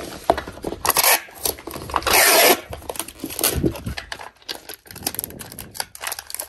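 Clear packing tape pulled off a handheld tape dispenser and pressed onto a cardboard box: a tearing rasp about two seconds in, shorter rasps later, and cardboard taps and rubbing in between.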